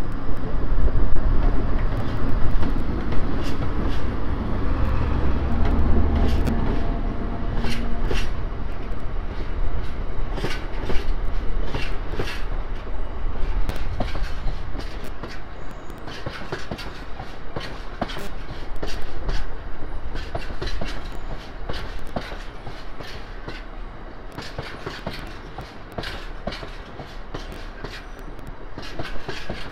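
Colas Class 70 diesel-electric locomotive passing close under power, its engine loud for the first several seconds. A long train of bitumen tank wagons follows, rolling by with wheels clicking over the rail joints, the sound slowly fading toward the end.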